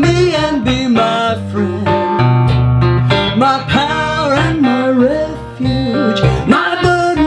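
National Reso-Lectric baritone guitar playing a blues, with low bass notes under plucked chords, and a woman singing over it, her voice sliding between notes.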